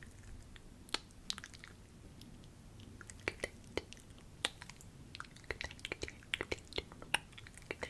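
Wet mouth clicks and smacks made close to a sensitive microphone: a few scattered clicks at first, then coming quickly, several a second, from about three seconds in.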